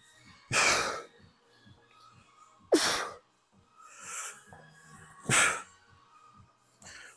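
Forceful breaths pushed out hard during a set of dumbbell curls: three loud exhales about two and a half seconds apart, one per rep, with softer breaths in between.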